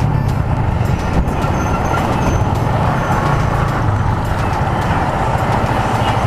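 Yamaha Sniper 150 single-cylinder motorcycle running steadily at about 80 to 90 km/h, with engine drone and rushing air and road noise. It is recorded by a helmet action-cam microphone under a furry dead-cat windscreen, as a test of wind noise at speed.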